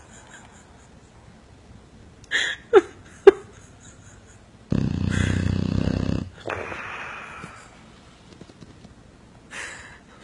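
Dog snoring in its sleep. First a breathy hiss and two short squeaky whistles that fall in pitch, then a long, loud, low snore, a softer hissing breath, and another short hiss near the end.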